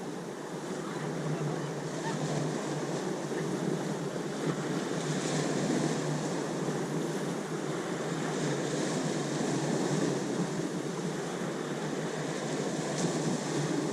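Ocean waves washing in a steady rush of surf, swelling louder as waves break about five and nine seconds in.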